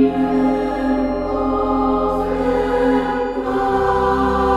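Background music of long held chords, changing to a new chord about three and a half seconds in.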